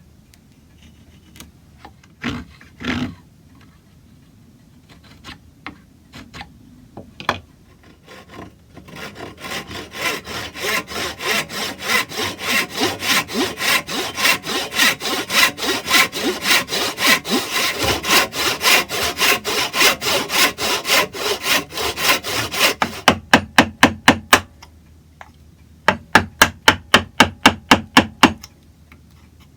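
Hand saw cutting wood: a few light knocks at first, then steady back-and-forth strokes about three a second, breaking into louder, quicker bursts of strokes near the end.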